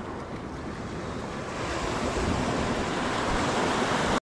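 Sea surf washing and breaking on a rocky shore, with wind rumbling on the microphone. The surf swells louder over the last two seconds, then cuts off suddenly.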